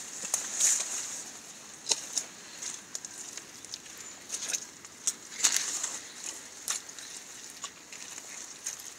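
Rubber boots squelching in soft, wet forest mud, one step after another at roughly one a second, some steps louder and splashier than others.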